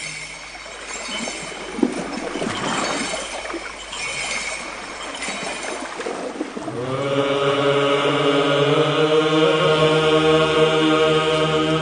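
Slow vocal chant: voices holding long notes, thin in the first seconds, then a full sustained chord about seven seconds in.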